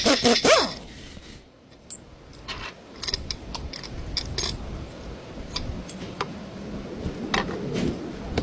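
Scattered metallic clinks and taps of hand tools and parts being handled during a front shock absorber replacement. The loudest sounds come at the very start.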